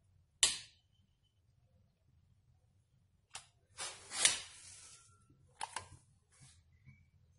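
Long-nosed utility lighter being clicked to light kindling: a sharp click about half a second in, a hissing rush lasting about a second around four seconds in, then a few more short clicks near six seconds.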